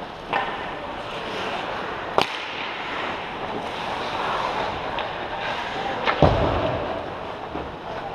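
Ice hockey play in a rink: a steady hiss of skates and play on the ice, with a sharp crack about two seconds in and a louder crack with a heavy thud a little after six seconds, like a puck struck by a stick or hitting the boards.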